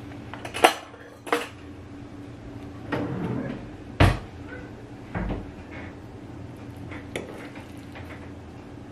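Cutlery and crockery clinking and knocking on a kitchen worktop: two sharp clinks in the first second and a half, a heavier knock about four seconds in, then a few quieter knocks and a small clink, over a steady low hum.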